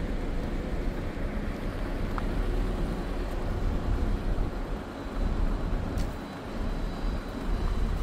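Steady low rumble of vehicle noise that rises and falls slightly, with one short click about six seconds in.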